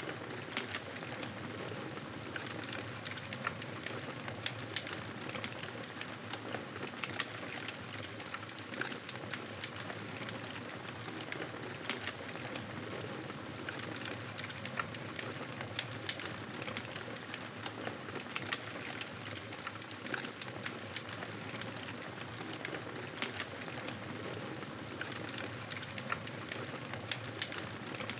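Campfire crackling: a steady hiss of burning wood with many small, irregular pops and snaps.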